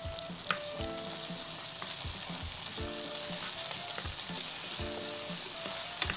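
Diced onion, garlic and tomato sizzling in hot oil in a nonstick frying pan, stirred with a wooden spatula that scrapes and knocks against the pan about once a second. Faint short pitched tones come and go underneath.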